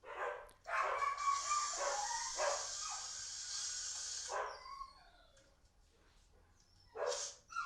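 A dog barking several times in short calls, with a steady hiss under the barks from about one second in to just past four seconds; another bark comes near the end.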